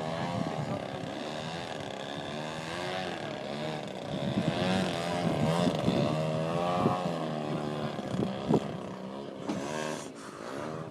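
RC model airplane engine running in flight, its buzzing pitch rising and falling repeatedly as the plane manoeuvres and passes. A few sharp clicks come near the end.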